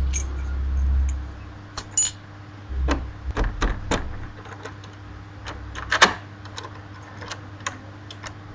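Irregular small clicks and taps, the sharpest about 2 s and 6 s in, over a low rumble in the first second and again around 3 s.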